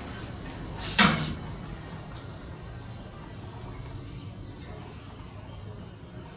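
A single sharp dog bark about a second in, over steady low background noise.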